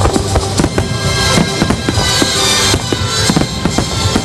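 Fireworks shells bursting in quick succession, many sharp bangs several a second, over steady music.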